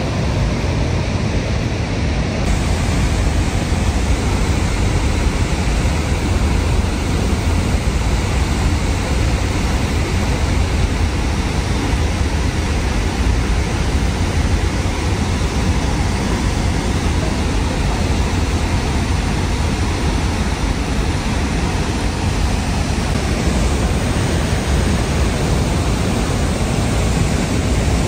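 Horseshoe Falls at Niagara: the water plunging over the brink makes a loud, steady rush, heaviest in the low range.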